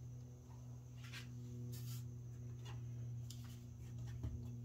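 Steady low electrical hum, with a few faint clicks and rustles as a multimeter and its test leads are handled.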